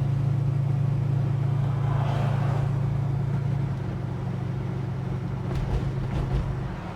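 Holden HK's engine running at a steady cruise, heard from inside the moving car as a low even drone. A soft rushing sound comes in about two seconds in, and a few light knocks come near the end.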